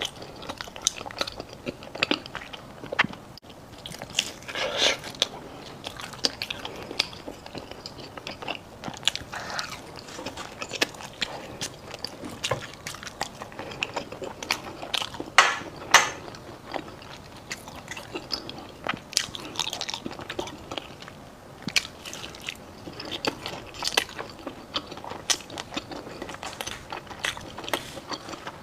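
Close-miked biting and chewing of crunchy food: a run of irregular crackling crunches and wet chewing, with two louder crunches about halfway through.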